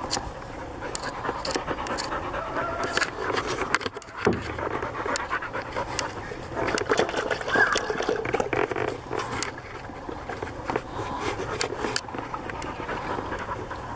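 Sled dogs panting close to the microphone, with scattered short clicks and knocks through it.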